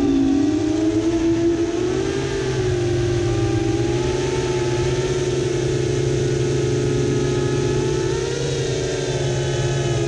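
Brushless motors and 7-inch propellers of an FPV quadcopter (Brotherhobby Avenger 2806.5 1300kv) whining in flight, heard from on board with a rush of prop wash. The pitch dips briefly near the start, then holds fairly steady with slight wavering as the throttle changes.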